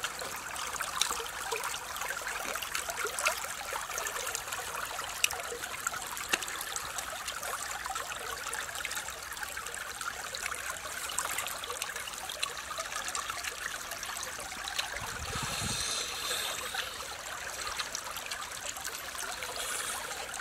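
Shallow stream running steadily over rocks, a continuous trickle of water, with scattered small clicks and a brief low thump about fifteen seconds in.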